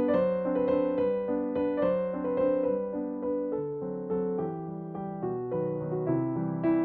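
Calm background piano music: a gentle melody of struck notes over lower accompanying notes.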